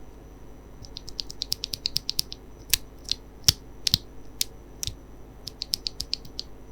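Typing on a mechanical keyboard fitted with Cherry MX Black Clear-Top ("Nixie") linear switches. A quick run of keystrokes is followed by a few louder, separate strikes in the middle, then another quick run near the end.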